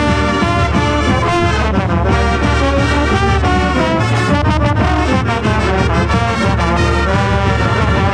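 Marching band playing a brass-led tune at full volume, many instruments together over a steady low bass line.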